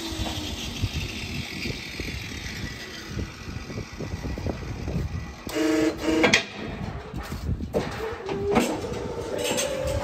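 Metal clanking and knocking from a WOPA hydraulic hoof-trimming chute as it is worked. There is a brief buzzing hum about six seconds in, and a steady hum starts near the end.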